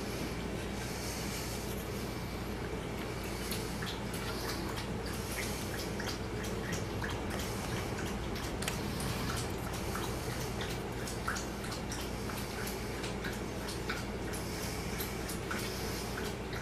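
A steady low hum with scattered light clicks and ticks as a hot glue gun and small plastic antenna blocks are handled on a bench.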